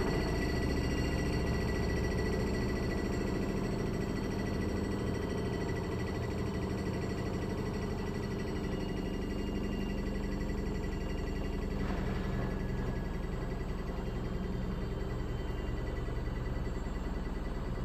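Haier HLC1700AXS washer-dryer combo running its final spin with an unbalanced load, the clothes bunched into one lump in the drum. A steady motor-and-drum hum slowly gets quieter.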